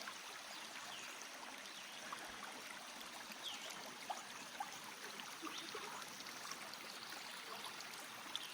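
Creek water flowing steadily, with small gurgles and plinks scattered through the steady rush.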